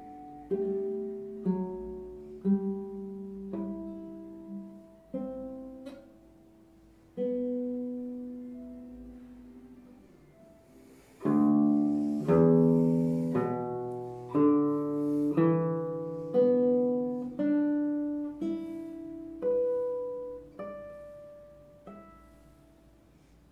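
Nylon-string classical guitar played solo: slow single notes and chords, each plucked and left to ring and die away. About halfway through, a loud strummed chord opens a louder passage of plucked notes and chords, which thins out and fades near the end.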